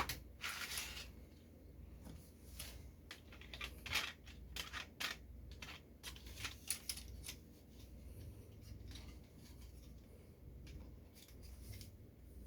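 Hands handling a plastic toy model and its packaging: light clicks, scrapes and rustles, frequent in the first half and sparser later.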